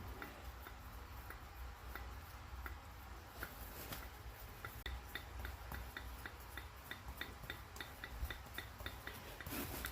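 Light, faint ticking from a refrigerator's reciprocating compressor, stripped of its stator, as its rotor is turned and the piston cycles. The ticks come slowly at first, then about three a second from about halfway.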